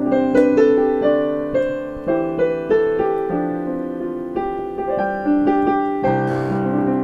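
Electronic keyboard played with both hands in a piano voice: a melody of struck notes over held chords, with lower bass notes coming in about six seconds in.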